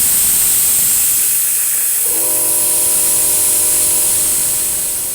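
Vacuum brake bleeder running with a loud steady hiss as it sucks old brake fluid out of a scooter's brake system; about two seconds in a steady hum of several tones joins the hiss.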